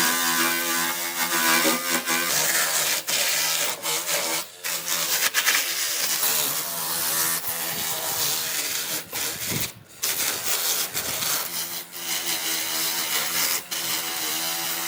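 A power tool running against wood, a steady motor hum under a rasping hiss of cutting or sanding. It breaks off abruptly several times.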